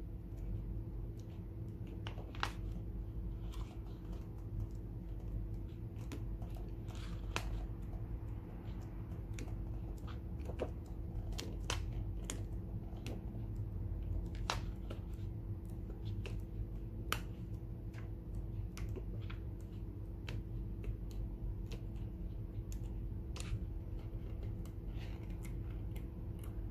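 Paper pages of a large book being turned by hand one after another, each turn giving a short crisp paper snap or flick every few seconds, over a steady low hum.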